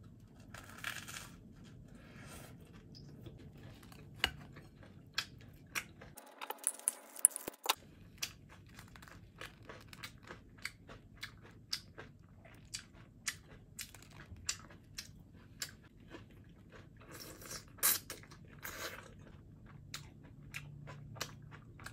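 Someone biting and chewing crisp toast topped with green beans, bell pepper and a fried egg: irregular crunches every second or so, with a few longer, louder bites, the loudest about seven seconds in.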